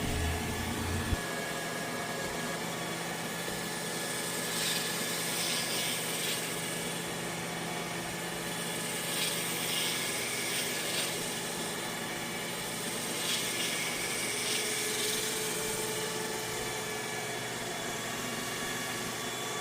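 Roomba Max 705 robot vacuum running steadily, a whirring motor hum with a few fixed whining tones and a hiss that brightens briefly now and then as its brushes sweep. A low rumble underneath cuts off about a second in.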